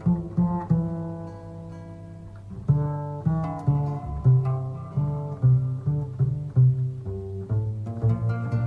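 South African jazz music with plucked strings. A few held notes are followed, about a third of the way in, by a steady bass line of plucked notes at roughly two a second.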